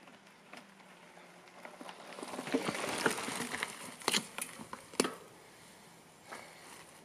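Pivot Trail 429 mountain bike riding past on a dirt forest trail: its tyres crunch over soil and twigs, swelling to a peak about three seconds in as it passes, then fading. A few sharp clicks and knocks follow about four and five seconds in.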